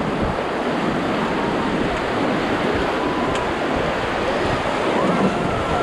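River rapids: whitewater rushing steadily and loudly around an inflatable raft on the Beas River.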